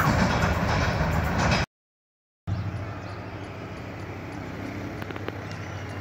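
Loud rushing noise that cuts off suddenly near the start. After a short silence, a diesel locomotive approaching a station gives a steady, quieter low engine hum, with a few faint clicks.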